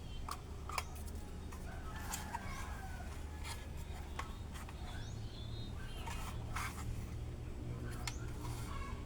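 Packaging being handled and opened: scattered clicks, taps and short rubbing scrapes, over a steady low hum.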